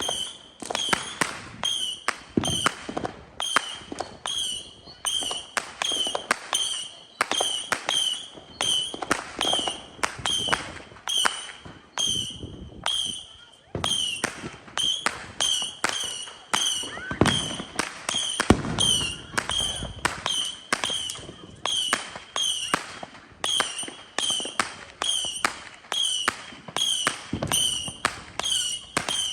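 Consumer fireworks going off in a long, steady series of sharp bangs, about one or two a second, each followed by a short high tone.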